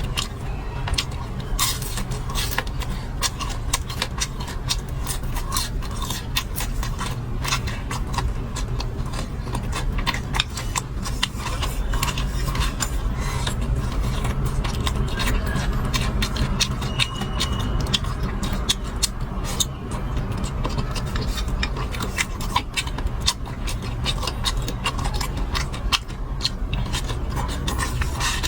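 Eating sounds: many quick clicks and scrapes of utensils against dishes, mixed with chewing, over a steady low rumble.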